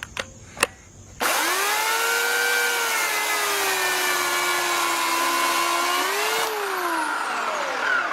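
Electric chainsaw switched on about a second in, running with a whine that sags slightly in pitch as the chain cuts through a log, then released near the end, its whine falling away as the chain coasts to a stop. A few light clicks before it starts.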